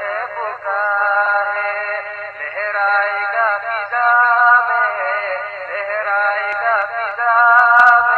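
Male voices singing an Urdu nasheed melody in long held notes that slide from one pitch to the next, with a brief click near the end.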